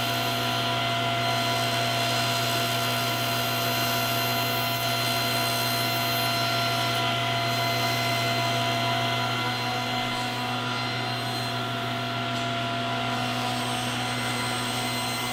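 Table saw running steadily with a constant hum while white wood trim molding is fed across the spinning blade, cutting away the molding's profile to rough out a coped joint.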